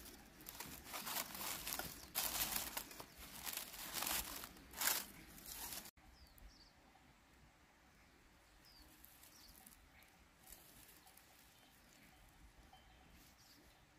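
Dry sticks and dry grass rustling and crackling in loud, uneven bursts as they are handled and laid over a small kindling fire. About six seconds in it cuts off abruptly to a quiet outdoor background with a few faint, short high chirps.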